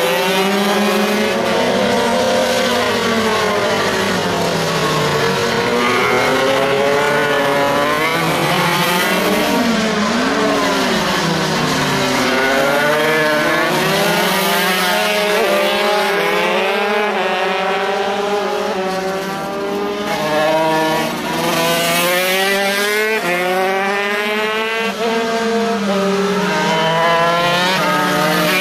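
Several MiniGP racing minibikes running hard on track, their small high-revving engines overlapping, each pitch repeatedly climbing and dropping as the bikes accelerate and slow.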